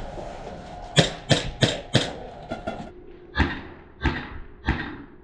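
SIG Sauer ProForce P320 M17 airsoft pistol firing: four quick shots about a second in, then four more, more evenly spaced, each with a short ringing tail.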